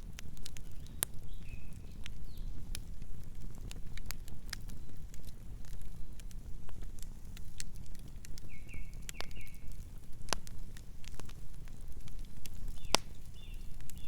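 Campfire burning: wood crackling with irregular sharp pops over a low steady rumble of the flames. A few short high chirps come through now and then.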